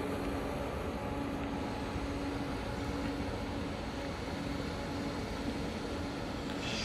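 Train running, a steady rumble with a steady low hum through it.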